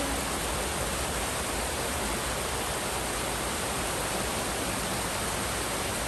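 Shallow stream rushing steadily over rocks and small cascades, an even wash of running water.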